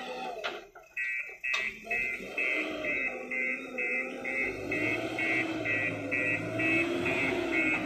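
JCB backhoe loader's reversing alarm beeping steadily, about two beeps a second, starting about a second in, over its diesel engine running with revs rising and falling as it backs up.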